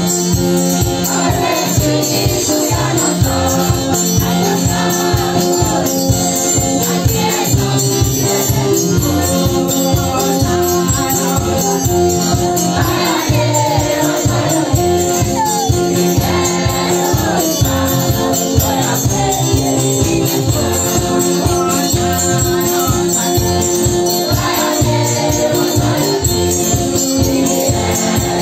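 A choir singing a hymn together over a steady rhythmic beat, with rattling percussion.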